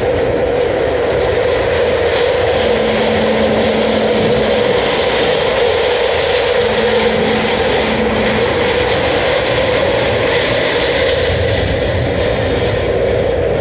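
Interior ride noise of a moving SEPTA subway-surface trolley, a Kawasaki light rail car: a steady loud rumble of wheels and traction motors on the rails. A low steady hum comes in briefly twice, about 3 and 7 seconds in.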